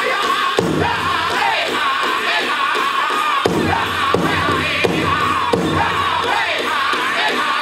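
Powwow drum group playing a chicken dance contest song: men singing high in unison over a big drum struck with heavy beats about every 0.7 seconds.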